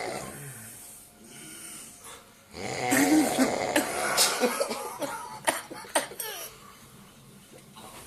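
A sleeping man snoring heavily, with a loud rasping snore starting about three seconds in and lasting a couple of seconds, followed by a few short sharp sounds.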